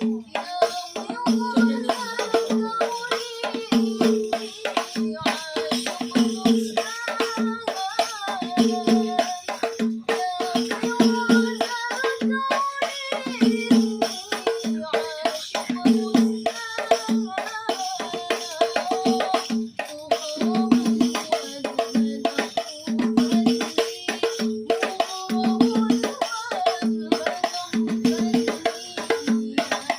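Hadroh ensemble playing: a driving rhythm on rebana frame drums with jingles, a pulsing deep drum tone, and a wavering melody line over the top.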